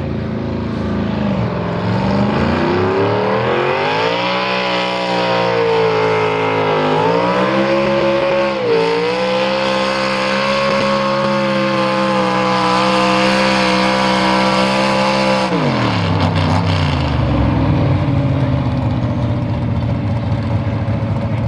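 Engine of a classic modified Oliver pulling tractor under full load, pulling a weight-transfer sled. The revs climb over the first few seconds, hold high and steady with a brief dip about nine seconds in, then drop sharply about fifteen seconds in as the pull ends in a full pull, settling to a low idle.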